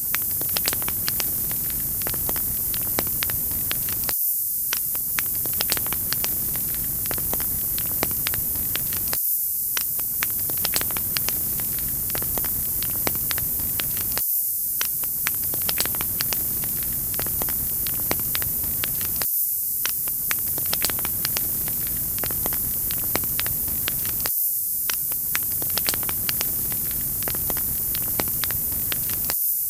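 Wood fire crackling: quick sharp snaps over a steady bright hiss. It is a short loop that repeats about every five seconds, with a brief dip in the lower sound at each join.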